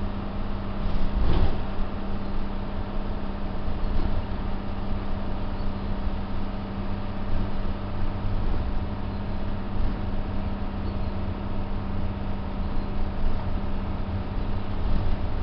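Diesel bus heard from inside its saloon: the engine drones at an unchanging pitch under a constant rumble of the ride. A knock comes about a second in, and a lighter one a few seconds later.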